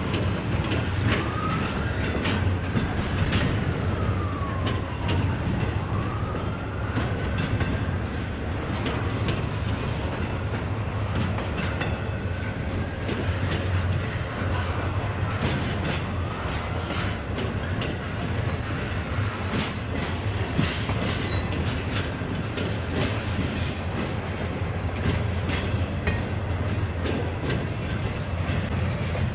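Norfolk Southern freight train rolling past: a steady rumble of cars with steel wheels clicking over rail joints throughout. A faint wavering wheel squeal comes and goes in the first half.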